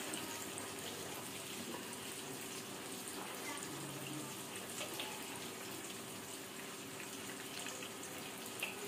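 Hot oil sizzling steadily in a steel kadai with ground spices just added: a soft, even hiss.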